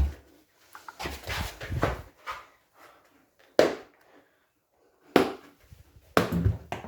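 A dog panting and moving about, with irregular scuffles and knocks, and a near-silent pause about two-thirds of the way through.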